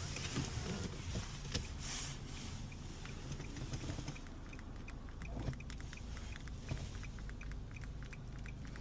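Steady low background rumble, with a rapid series of faint ticks, about four or five a second, starting a few seconds in.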